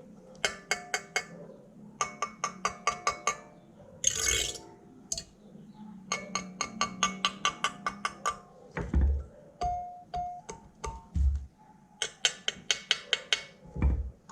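Kalimba (thumb piano) tines being plucked in several short runs of quick notes, each note ringing briefly, with pauses between the runs. A brief rustle about four seconds in and a few dull low thumps of handling.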